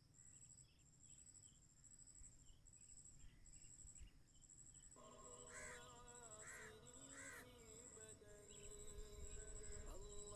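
Faint, steady high-pitched insect trill, pulsing quickly, typical of a cricket. Three crow caws come a little past halfway, and faint music with held tones comes in at about the same point.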